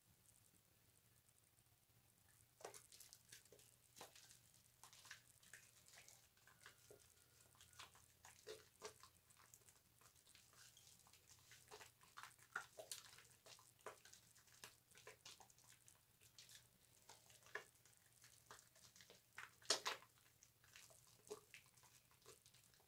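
Bar soap being lathered with water: faint, irregular wet squishes and small crackling pops of foam, one a little louder near the end.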